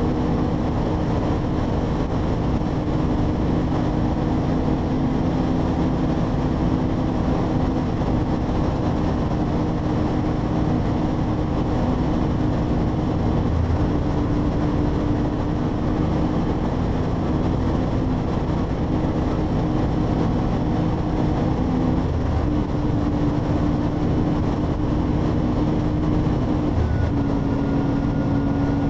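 Motorcycle engine running steadily at highway cruising speed under heavy wind rush on the microphone. The engine note shifts slightly about two-thirds of the way through and again near the end.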